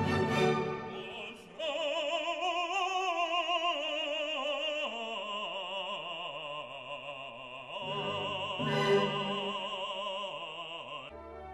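Operatic singing with a wide vibrato over classical music: long held notes that begin about a second and a half in and break off near the end.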